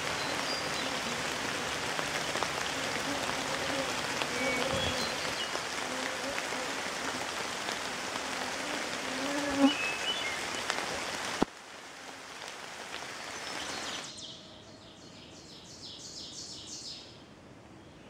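Steady rain pattering on a pond's surface, with faint bird chirps and a couple of sharp knocks in it. A little past the middle it cuts off suddenly to a much quieter wet forest. Near the end a small songbird sings a quick run of about ten high notes.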